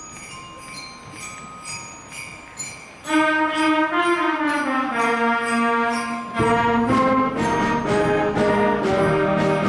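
School concert band playing a Christmas tune: sleigh bells shaken in a steady beat over a few soft held notes, then the full band with brass comes in loudly about three seconds in, its low line stepping downward.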